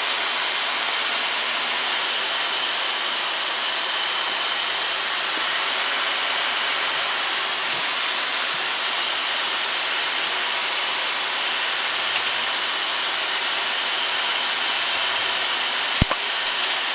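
Steady rushing in-flight noise on a Boeing 737-800 flight deck during the approach descent, with a faint thin high tone running through it. A single short click comes near the end.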